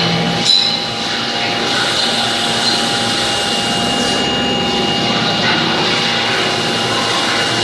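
CNC machining centres running on a factory floor: a steady mechanical noise with a constant high whine, and a short sharp click about half a second in.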